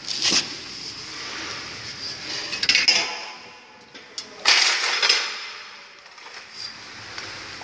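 Metal clinking and knocking, with a steady hiss and three louder noisy bursts, the longest about a second long just past the middle.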